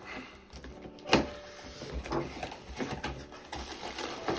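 A parcel's packaging being handled and opened by hand: irregular rustling and scraping, with a sharper knock about a second in.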